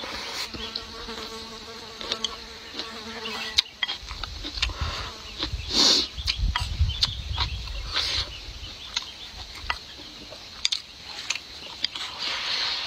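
Close-up eating sounds: chewing and slurping of noodles and rice, with short clicks of wooden chopsticks against a ceramic bowl and a louder slurp about six seconds in. An insect buzzes close by, steady, for the first few seconds.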